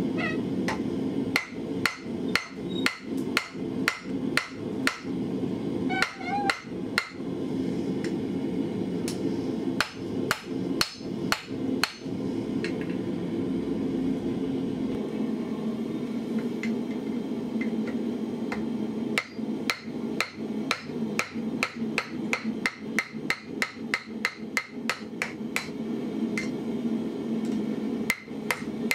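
Hand hammer striking hot steel on the horn of an anvil, shaping the ring of a hand-forged bottle opener. The blows come in runs, about two to three a second, stop for several seconds in the middle, then resume faster near the end. A steady low roar continues underneath.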